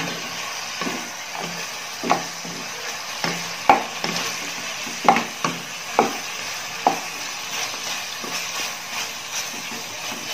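A wooden spatula stirs chunks of chicken, sausage and fishcake in a wok over a steady frying sizzle. Irregular scrapes and knocks of the spatula against the pan come every half second to a second, loudest around the middle.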